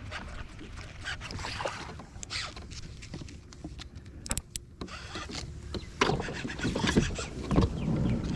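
Knocks, clicks and water sounds around a pedal-drive kayak, busier and louder from about six seconds in.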